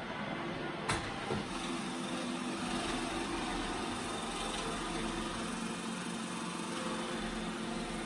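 iRobot Roomba i7+ robot vacuum running steadily, its suction motor and brushes whirring as it cleans along a rug edge. Two brief knocks come about a second in.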